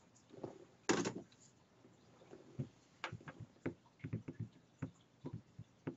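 Irregular light clicks and knocks, with a sharper knock about a second in: handling noise as a dead wireless mouse is dealt with.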